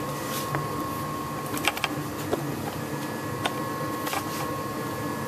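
A steady high-pitched whine with a low hum beneath it, and a few light clicks and taps, the sharpest pair a little under two seconds in.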